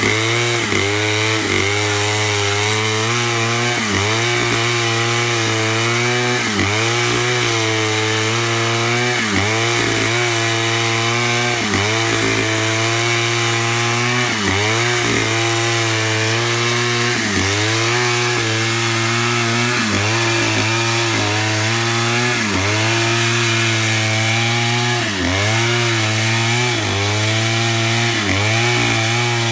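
Stihl chainsaw running at high revs while cutting through a log to mill lumber. Its pitch dips briefly and recovers about every second and a half as the bar is worked through the cut.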